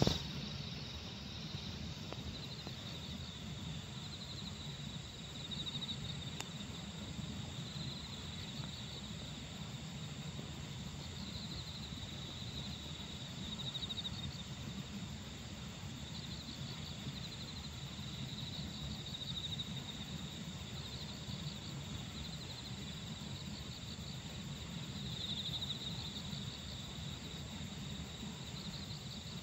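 Crickets chirping: a steady high trill with louder pulsing bursts every few seconds, over a low steady rumble.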